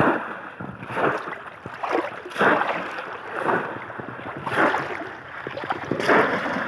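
Shallow river water splashing hard and repeatedly, about once a second, as a bamboo polo basket trap is plunged down into it and the man wading with it churns the water.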